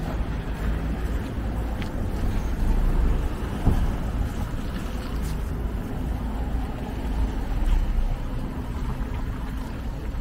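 Road traffic on a busy city street: cars and city buses driving past, a steady low rumble of engines.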